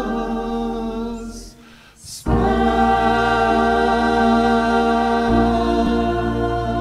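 Mixed choir singing a Latvian hymn. A phrase ends, and after a brief break about two seconds in the choir holds one long chord that slowly fades.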